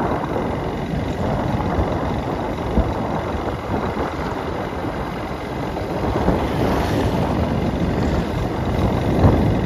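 Motorcycle running steadily as it rides along a road, its engine noise mixed with road and rushing-air noise.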